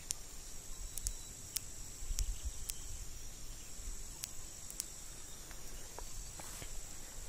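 Steady high-pitched chorus of insects singing, with scattered sharp clicks and some low wind rumble on the microphone.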